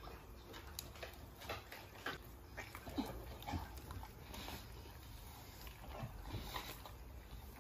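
American bully dogs eating raw meat from a plate: faint, scattered chewing, lapping and lip-smacking.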